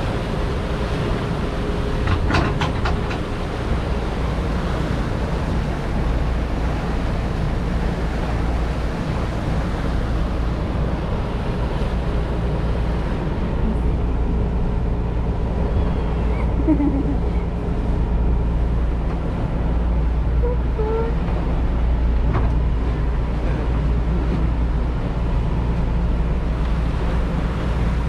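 Boat's engine running steadily with a low drone, mixed with the rush of water along the hull and wind on the microphone. A few brief clicks come a couple of seconds in.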